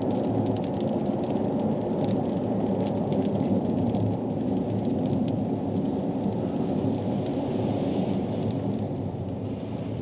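Steady low rumble of a vehicle driving along the road, heard from inside, with scattered light ticks over it.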